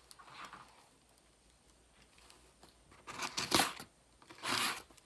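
Scissors cutting open a cardboard box, in two short bursts of cutting: the first about three seconds in, the second about a second later.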